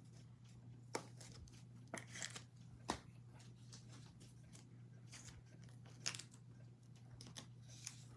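Baseball cards and foil pack wrappers being handled: a handful of short flicks and brief crinkly rustles, over a faint steady low hum.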